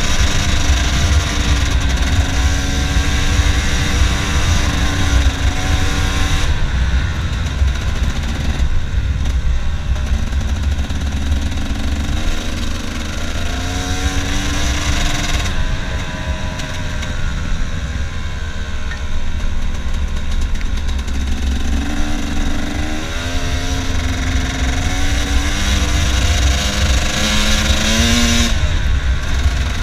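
KTM trail bike engine running under load on a dirt track, its pitch rising and falling as the throttle is opened and closed, easing off twice when the throttle is shut. A heavy low rumble of wind on the microphone runs underneath.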